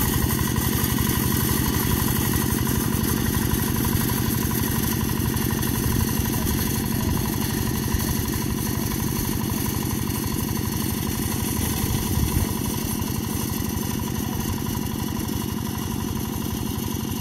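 Two-wheel hand tractor's engine running steadily while it drags a leveller board through the flooded rice paddy, growing slowly fainter as it moves away.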